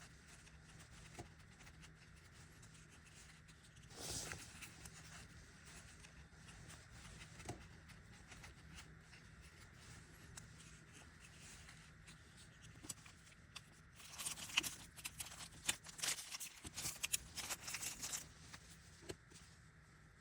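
Quiet handling noise: a brief rustle about four seconds in, a few single light ticks, then a dense run of light clicks and scrapes for about four seconds near the end.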